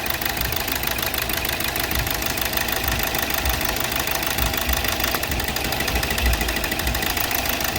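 Hyundai Verna engine running rough and knocking on three cylinders, with a steady fast ticking over a pulsing low note. The number 3 cylinder is misfiring because its injector gets too little voltage from a faulty injector circuit in the ECM.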